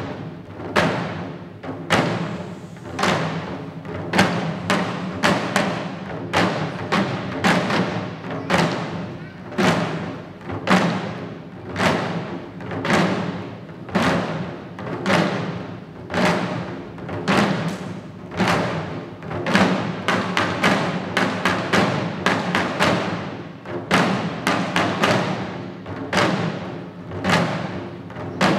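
Shishi-odori deer dancers' chest-slung drums beaten with sticks in a steady, repeating rhythm of sharp strikes, about one to two beats a second.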